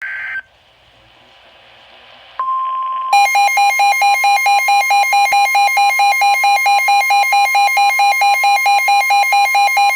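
Midland WR120 NOAA weather radio sounding a severe weather warning: a brief warble of digital alert-header tones, then faint radio hiss, then the steady 1050 Hz warning tone comes on about two and a half seconds in. Under a second later a loud, harsh beeping alarm joins it, about four to five beeps a second.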